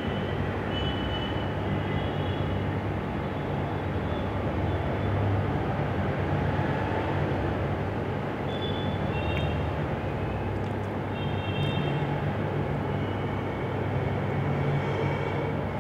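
Steady background noise with a low hum. A few faint, short high-pitched tones come and go around the middle.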